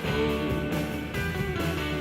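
Background rock music with guitar and a steady beat, a sung line held early on.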